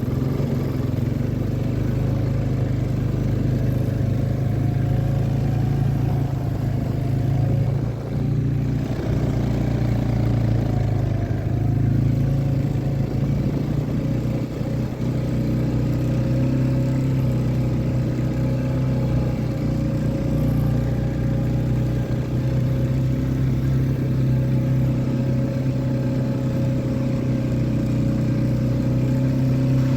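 Honda Rancher ATV engine running steadily as it pushes a snow plow and tows a driveway drag, with a brief dip in engine note about eight seconds in.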